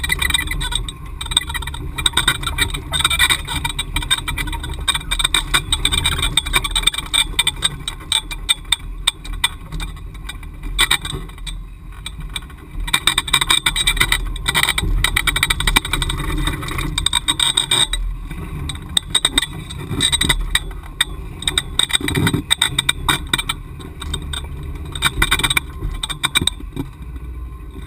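Ford Bronco engine running as the truck crawls up a rocky off-road trail, under a constant irregular clatter of knocks and rattles as it lurches over rocks and logs.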